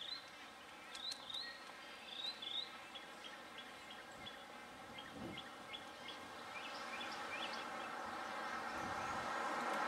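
Birds chirping: short, hooked calls repeated in the first few seconds, then quicker short notes. In the second half, a steady engine noise grows louder.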